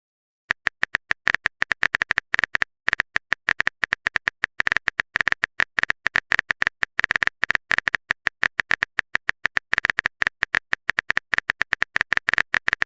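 Rapid run of short, identical clicks from a typing sound effect, about seven to eight a second with small irregular gaps, starting about half a second in.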